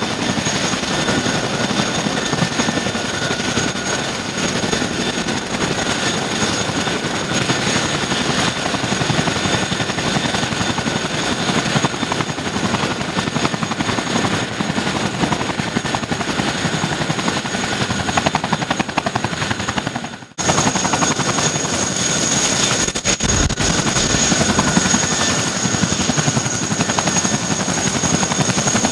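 CH-47 Chinook's twin T55 turboshaft engines running with both tandem rotors turning on the ground: a steady, loud mix of rotor chop and high turbine whine. The sound drops out for an instant about two-thirds of the way through and comes back with the high whine stronger.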